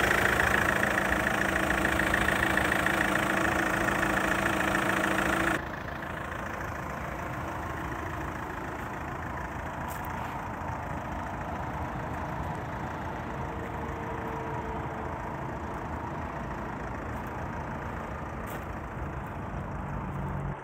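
Daewoo Winstorm's VCDi 16V four-cylinder turbodiesel idling steadily, close up with the bonnet open. About five and a half seconds in it cuts to the same idle heard from outside the car, much quieter.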